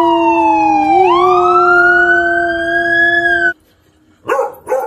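Loud dog howling along with a siren, a high wailing tone that dips and then climbs about a second in over steadier lower tones; it cuts off suddenly about three and a half seconds in. A dog then barks twice near the end.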